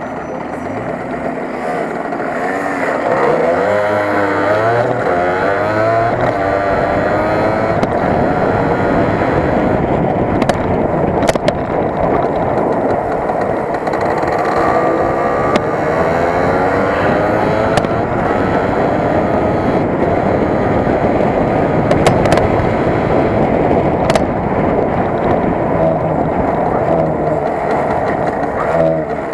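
Yamaha RD 80 LC's small two-stroke single-cylinder engine under way, its pitch climbing and dropping repeatedly as it revs up and shifts, most clearly a few seconds in and again around the middle, over a steady rush of wind and road noise.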